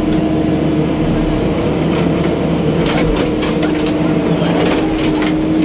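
Excavator's diesel engine running steadily with a constant hum, and a few short knocks around the middle.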